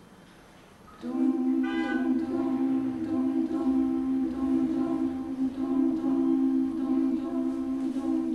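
Small mixed a cappella choir coming in about a second in and holding a steady sung chord, two low notes sustained with voices above them.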